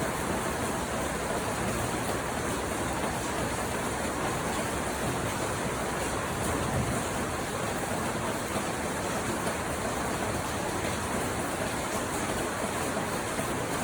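Steady rainfall, a constant even hiss of rain with no breaks or single distinct drops.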